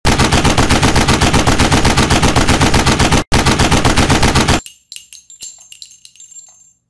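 Rapid machine-gun fire sound effect, about eight shots a second, with a brief break about three seconds in. It stops after about four and a half seconds, and fainter crackles with high ringing tones follow.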